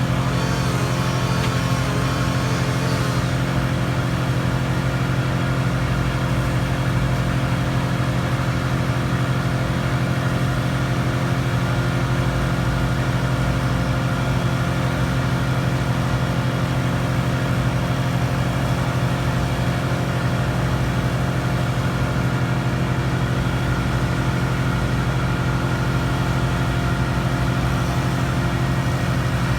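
A large engine running steadily at an unchanging speed, with a brief higher-pitched sound over it in the first few seconds.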